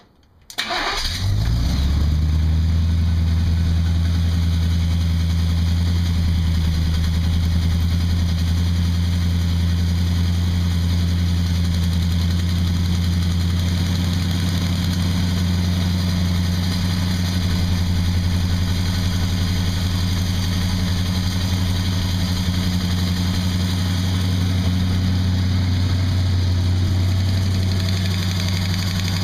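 Chevrolet V8 starting about a second in and settling into a steady idle. It runs with its rocker arms exposed, so the lifters can be adjusted while it is running.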